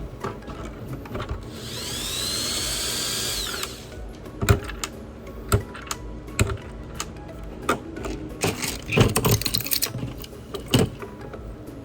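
A small power-tool motor whirs for about two seconds, its pitch rising and then holding, followed by scattered clicks and taps of tools on the work.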